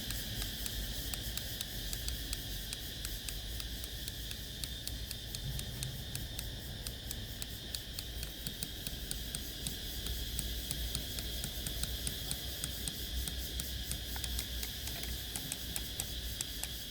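Sony CFS-715S cassette player's tape mechanism clicking rapidly and regularly while playing, several clicks a second over a steady hiss and low hum. The clicking comes from a faulty intermediate gear in the drive.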